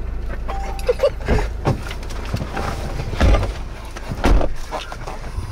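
A person climbing back into a parked car: a handful of knocks and clunks from the door and the cabin, over a steady low rumble.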